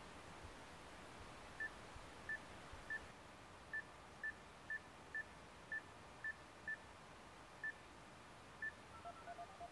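Volkswagen RNS 315 touchscreen head unit giving a short, high confirmation beep for each key tapped on its number pad, about a dozen beeps at an uneven typing pace. A quick run of lower beeps follows near the end as the number is dialled.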